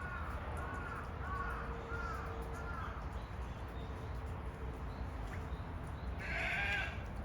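A series of about five short arching animal calls in the first three seconds, then one louder, harsher call lasting about a second near the end, over a steady low background hum.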